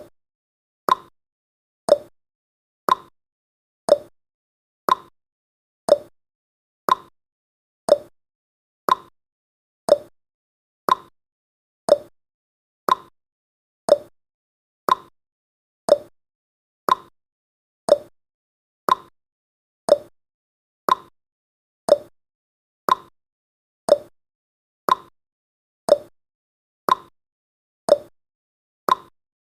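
Countdown timer's tick sound effect: one short, sharp click every second, evenly spaced like a clock ticking off the seconds.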